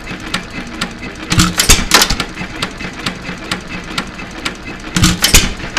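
United 2.5 HP hit-and-miss stationary engine running: it coasts with a steady clicking about four times a second and fires in two short bursts of louder strokes, one about a second and a half in and one near the end.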